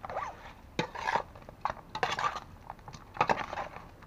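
Metal spoon clinking and scraping against a metal basin while marinated meat is tossed and mixed in it, in irregular strokes.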